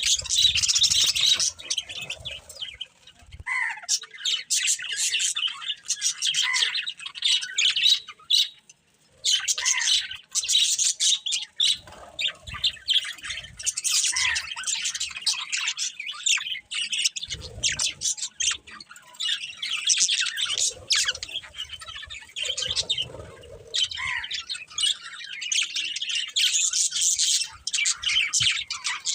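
Budgerigars chirping and chattering in a rapid, continuous stream of high twittering calls, with a short pause about nine seconds in.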